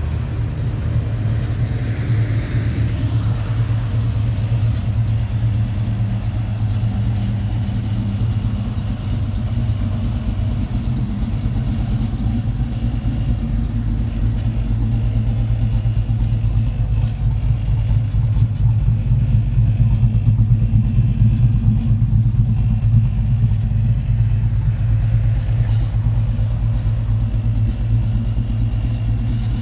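The 1967 Chevy II Nova's 6.0-litre LQ9 V8 with a stage 2 cam idling steadily, a deep even hum that gets a little louder for a few seconds past the middle.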